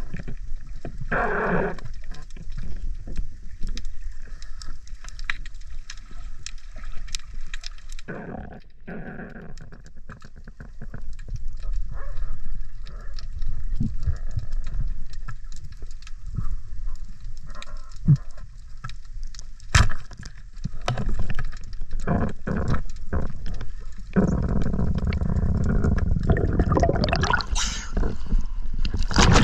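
Underwater sound picked up by a diver's camera: water rushing and gurgling, with scattered sharp clicks. Near the end a long, loud rush of water and splashing as the diver comes up to the surface.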